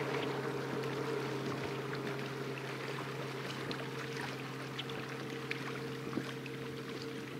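Distant motorboat engine humming steadily, slowly fading as it moves away, over light lapping and splashing of small waves.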